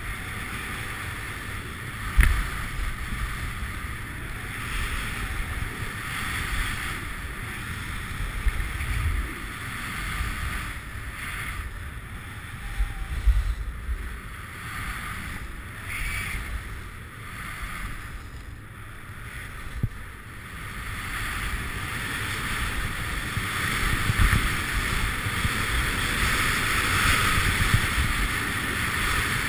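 Skis hissing and scraping over snow on a downhill run, with wind rumbling on the camera's microphone and an occasional sharp knock. The hiss grows louder in the last several seconds.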